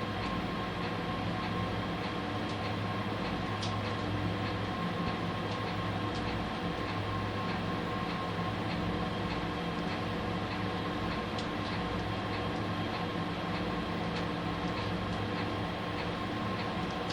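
Inside the cabin of a Nissan Diesel UA city bus, its natural-gas PU6 engine running at a steady pitch, with a few faint clicks and rattles.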